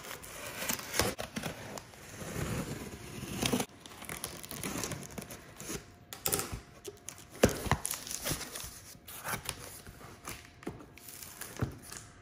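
A knife slitting packing tape on a cardboard box, then the flaps being pulled open and the cardboard and packaging rustling and crinkling, with irregular scraping and several sharp knocks.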